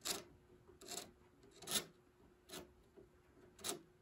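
Small chisel scraping old built-up finish out of a carved rope-twist molding on a wooden piano case: five short, faint scrapes, about one a second.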